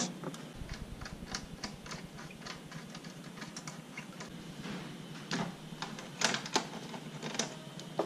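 Small hand socket ratchet clicking in quick, fairly even runs as a bolt is turned out, with a few louder metallic clicks in the second half.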